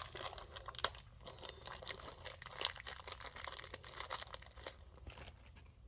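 A small plastic parts bag crinkling and rustling as it is handled, with many small irregular crackles.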